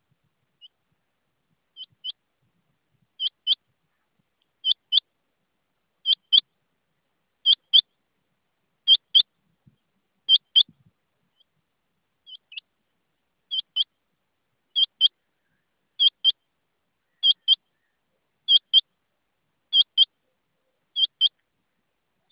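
Rain quail calling: a sharp, high two-note call repeated about every second and a half, growing louder over the first few calls. There are two runs of about seven calls each, with a short break near the middle.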